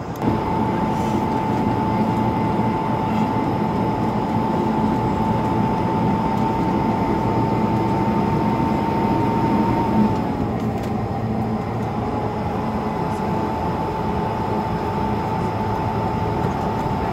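Cabin noise of an Airbus A220 rolling out on the runway after landing: a steady rumble with a steady whine from its Pratt & Whitney PW1500G geared turbofan engines. The noise steps up just after the start, and the whine drops slightly lower and quieter about ten seconds in.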